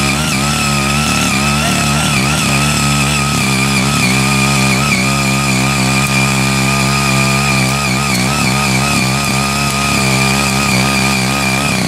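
Ching Yee CY80 power tiller's small 78.5 cc engine running steadily under load while its six rotary tilling blades churn through grassy orchard soil. A high whine sits over the engine note, wavering slightly in pitch.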